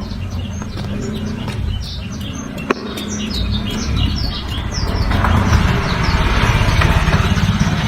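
Blackthroat (black-throated canary) singing a fast, loud run of short, high, downward-slurred chirps, denser in the second half. A steady low rumble runs underneath, with a single sharp click about three seconds in.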